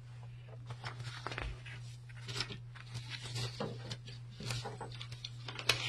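Scattered clicks, knocks and rustles of someone handling things at a desk close to the microphone, over a steady low hum.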